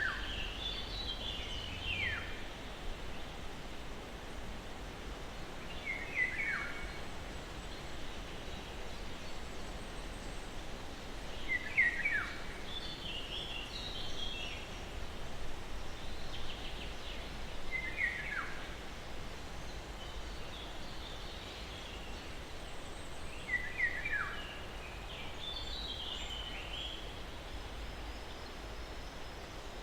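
Birds chirping, short high calls that slide downward, coming back about every six seconds with fainter calls between. Behind them is the steady hiss of a breeze through pine trees.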